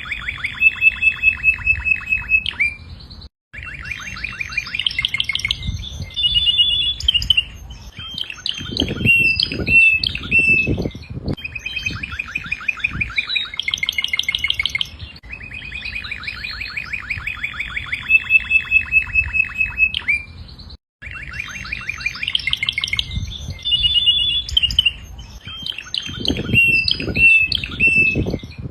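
Domestic canary singing: long rolling trills of rapidly repeated notes alternating with chirps and short whistled phrases. The song breaks off briefly twice, and the same passage seems to start over each time.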